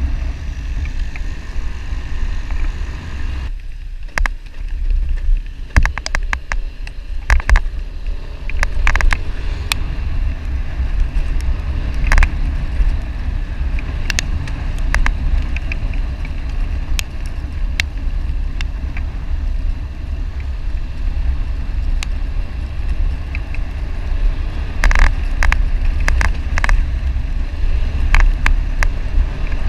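Wind buffeting the microphone of a camera on a moving motorcycle, a steady deep rumble mixed with road and engine noise, broken by frequent short sharp knocks and rattles. The sound briefly dulls about four seconds in.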